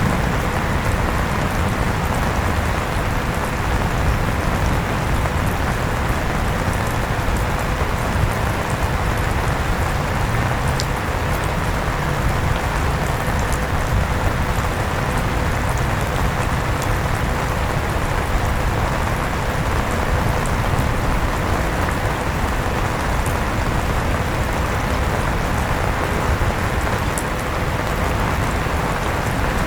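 Electric fan running steadily with rain falling, an even rushing noise with a thin steady hum through it.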